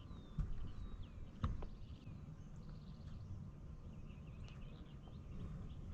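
Birds calling faintly with short whistled notes over a low steady rumble, with two light knocks, the first about half a second in and the sharper one about a second and a half in.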